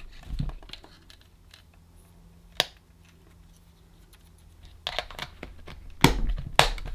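Clicks and knocks of a small radio and its lead being handled and plugged in: scattered light clicks, one sharp click about two and a half seconds in, and a cluster of clicks and knocks near the end.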